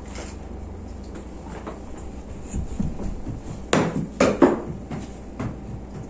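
A few separate knocks and thumps of household things being handled, loudest about four seconds in, over a low steady room hum.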